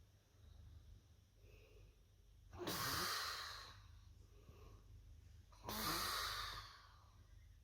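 A sleeping person breathing noisily in light snores: two loud breaths about three seconds apart, with soft breathing between.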